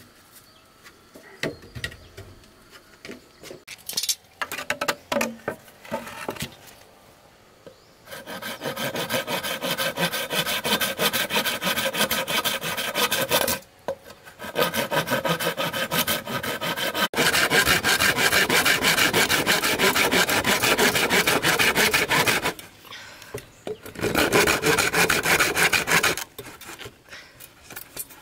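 Hand saw cutting through dry bamboo poles in three long spells of fast back-and-forth strokes, starting about eight seconds in. Before that, scattered knocks of a wooden plank and bamboo poles being handled.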